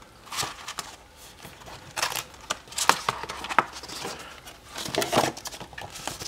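Stiff cardboard documentation folder being opened and its flaps handled: a series of short papery scrapes, rustles and soft flaps, loudest about two to three and a half seconds in and again about five seconds in.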